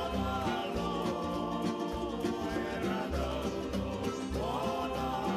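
Background music: a song with plucked guitar-like strings, a singing voice and a steady beat.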